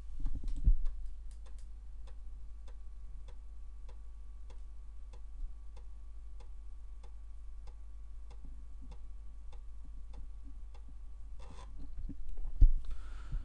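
Commodore 1541 floppy drive reading a disk track by track: its read/write head steps with short, even clicks about two a second, over the faint hum of the spinning drive.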